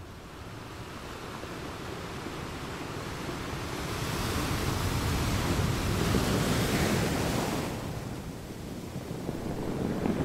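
Ocean waves washing in: a rushing noise that swells to its loudest in the middle, ebbs, then begins to rise again near the end.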